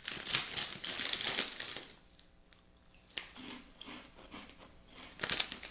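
A bag of baked cheddar Cheez Doodles puffs rustling as a hand reaches in, then a person crunching and chewing the puffs, with scattered short crunches and a sharp one near the end.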